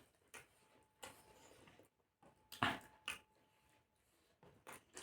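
Faint eating sounds close to the microphone: short, scattered chewing and mouth noises from someone eating chicken biryani.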